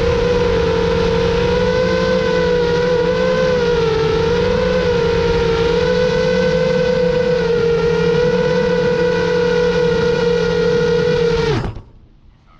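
FPV quadcopter's brushless motors and propellers whining steadily, the pitch wavering slightly with throttle. Near the end the whine drops quickly in pitch and stops as the motors spin down with the drone setting down on the ground.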